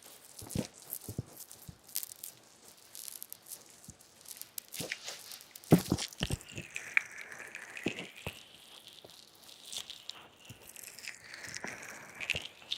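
Fingers rubbing, scratching and tapping over binaural ear microphones in an ear-massage ASMR: scattered sharp taps and scratchy rustles, with a smooth swelling hiss in the second half as the hands cup and sweep over the mic.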